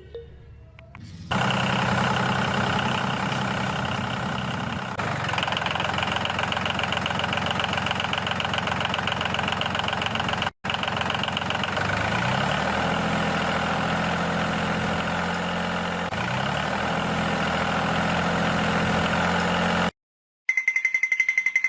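A small engine running steadily, its pitch rising briefly twice in the second half. There are two abrupt edit cuts, and it stops suddenly near the end.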